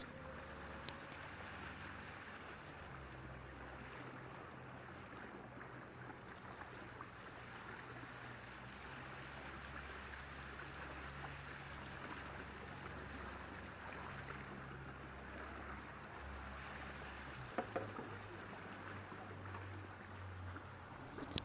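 Small motor launch under way: a steady low motor drone with water rushing and splashing along the hull. A couple of sharp knocks are heard late on.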